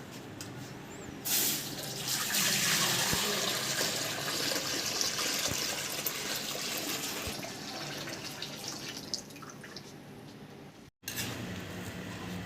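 Water running or pouring as a steady hiss that starts abruptly about a second in and eases off near the end.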